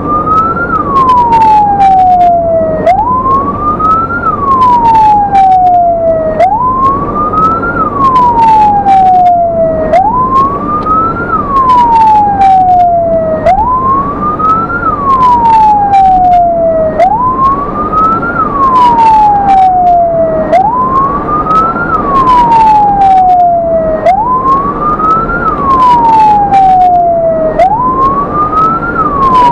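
Ambulance's electronic siren in wail mode: a loud tone that sweeps up quickly and falls away slowly, repeating about every three and a half seconds, with the ambulance's engine and road noise underneath.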